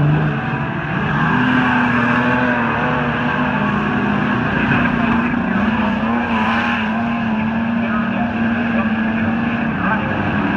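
Streetstock race cars' engines running hard at high revs around a speedway track, several engines overlapping. The pitch steps up about a second in and then rises and falls with the throttle.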